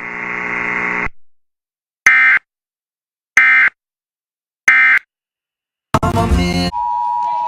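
Three short bursts of EAS digital data tones, evenly spaced about a second and a half apart: the End of Message (EOM) signal that closes the special marine warning. Near the end comes a short loud burst, then a steady beeping alert tone begins.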